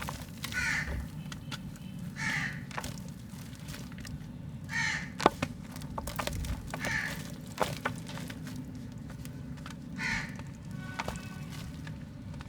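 Harsh bird calls, about five, spaced a couple of seconds apart, over scattered sharp clicks and snaps of mud being crumbled by hand, the loudest snap about five seconds in. A steady low hum runs underneath.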